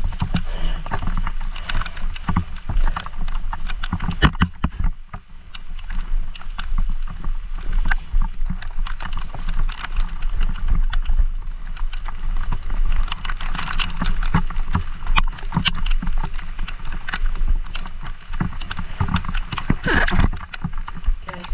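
Mountain bike riding through a flooded, muddy trail in pouring rain: tyres splashing through standing water, with frequent sharp knocks and clatters from the bike over rough ground and a steady low rumble on the microphone.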